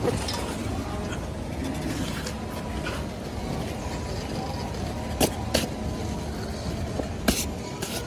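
Steady hum of a baggage-claim hall with the carousel running, and four sharp knocks in two pairs in the second half as a backpack is handled onto a metal airport luggage trolley.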